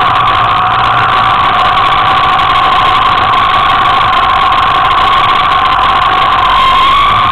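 Small motor scooter engine running at a steady pitch while riding, its tone rising slightly near the end.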